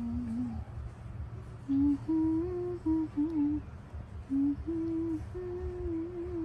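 A person humming a slow tune in short phrases, holding notes and stepping up and down in pitch, with a pause of about a second near the start.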